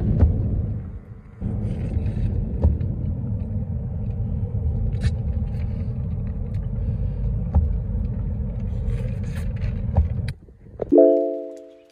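Steady low road and engine rumble inside a moving car's cabin on a rain-wet road. It cuts off near the end and a few notes of music begin.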